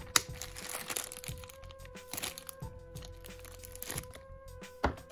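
Clear plastic zip-top bag crinkling and crackling as it is handled, with a sharp click just after the start and a louder one near the end. Background music holds a steady note underneath.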